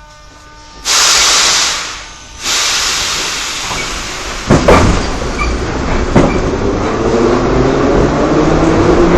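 Metro train: two loud bursts of air hiss, a couple of sharp knocks, then the train moving off, its motor whine rising in pitch over steady running noise.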